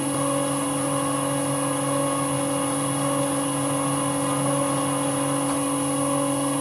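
Vintage Karger metal lathe running at steady speed, its motor and drive giving a steady hum with a faint high whine, while a tailstock center drill cuts a starting hole in the end of a bar.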